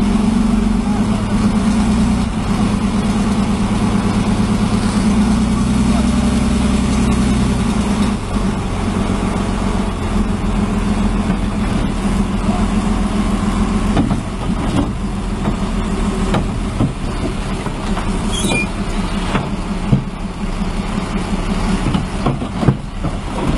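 Heavy machine's engine running steadily, with a few sharp knocks in the second half.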